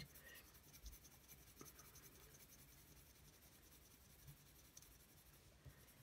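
Watercolour pencil scratching faintly on paper as it shades in colour with rapid small strokes.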